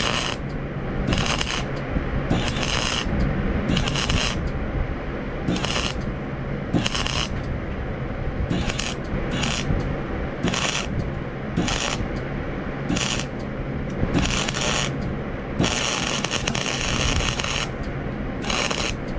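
Electric arc welding on a steel rake: the arc crackles and sizzles in about a dozen short bursts, each under a second, with a longer run about sixteen seconds in. A steady low hum runs underneath.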